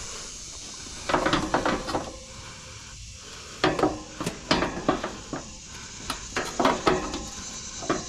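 Steel pry bar clanking and scraping against the fan grille on top of an air-conditioner condenser unit, as the cover is pried to get it loose. The knocks come in three short clusters with quieter gaps between.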